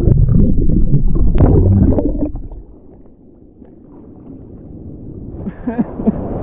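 A wave washing over the camera: a loud, muffled underwater rumble and gurgling for about two seconds. It then dies down, and splashing water comes back near the end as the camera clears the surface.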